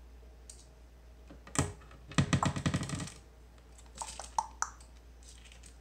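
African grey parrot making clicking sounds: one sharp click, then a rapid run of clicks and taps lasting about a second, then a few scattered clicks and a brief squeak near the end.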